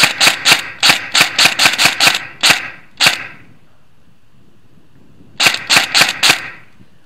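Airsoft gun firing in quick single shots: about a dozen shots over the first three seconds, then four more in a fast run a couple of seconds later, each with a short echo.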